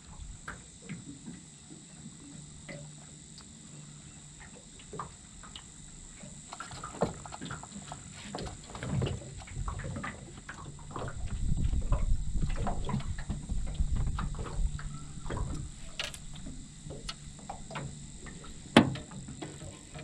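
Scattered knocks and clicks on an aluminium dinghy as gear and catch are handled on its deck, over a low steady rumble, with one sharp, loud knock near the end.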